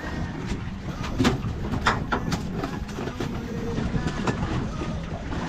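Wind rumbling on the microphone and water lapping at a small boat's hull, with several sharp knocks and clicks scattered through.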